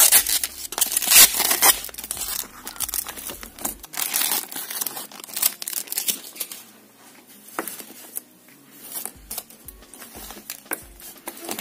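Thin plastic protective film being peeled off a metal nail-stamping plate, crinkling and tearing. It is loudest in the first two seconds, then gives way to scattered small crackles and clicks as the film is handled.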